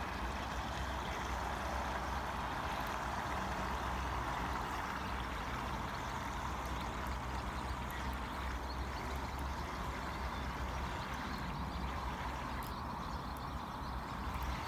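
Waverunner Mk3 bait boat's electric drive motors running steadily at half throttle as the boat moves out under power, a steady hum over low rumble.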